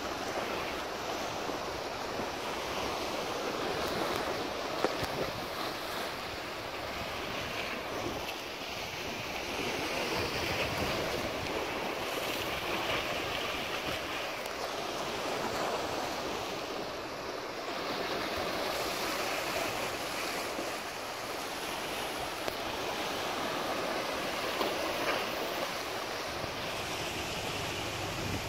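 Sea waves washing against a rocky shoreline in a steady rush that swells and eases, with wind noise on the microphone.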